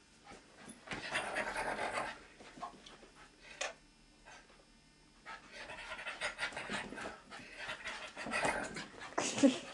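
Dog panting in breathy bursts, with a lull of a few seconds after the first burst before the panting resumes.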